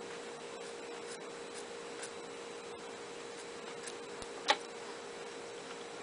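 Quiet handling of tweezers and a small glass bottle: faint scattered clicks, with one sharp click about four and a half seconds in, over a steady electrical hum.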